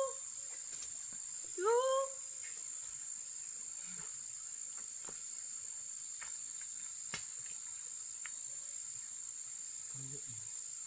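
A steady high-pitched drone of insects, with two short rising calls about two seconds apart near the start.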